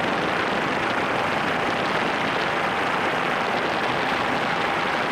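Steady roar of a helicopter in flight, an even engine and rotor noise with no change in level.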